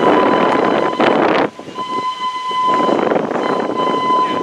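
Steam locomotive whistle: one long blast, a short break about a second and a half in, then a second long blast, over the rushing noise of the moving train.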